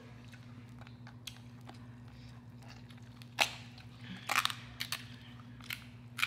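King crab leg shell cracking and snapping as it is pried apart by hand: one sharp crack about three and a half seconds in, then a run of smaller cracks and clicks.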